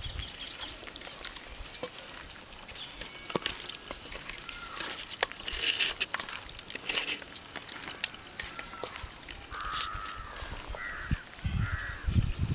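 Hand mixing marinated chicken pieces in a stainless steel bowl, with scattered sharp clicks and taps. Birds call in the background, with a run of short calls about ten seconds in and low thumps near the end.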